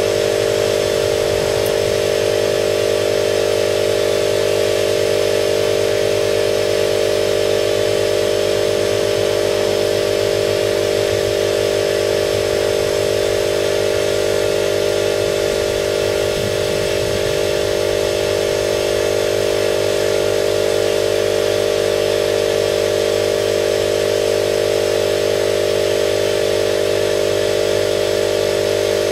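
Air compressor running steadily, a constant loud machine drone with a strong hum.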